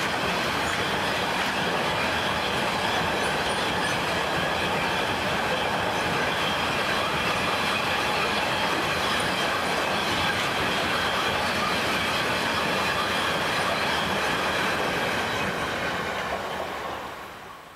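Empty double-deck car-transporter freight wagons rolling past on the rails: a steady rumble and rattle of wheels with a faint high ringing over it. The sound fades away near the end as the last wagon passes.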